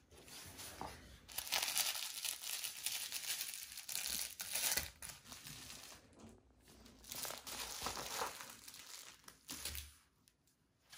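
Crinkling and rustling as a cat rolls over scraps of paper and wrestles a stuffed fish toy on a wooden floor, in two long spells that die away near the end.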